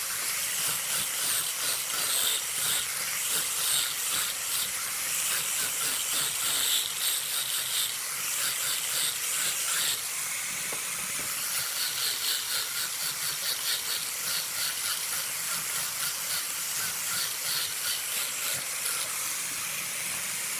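Work on a wood lathe: a steady high hiss of tool or abrasive against the spinning wood, with a fast, even flutter.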